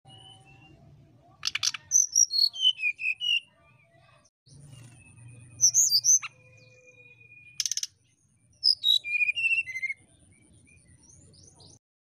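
Brown-chested jungle flycatcher singing in whistled phrases: runs of clear notes that step down in pitch, one long steady whistle in the middle, and two short buzzy rattles.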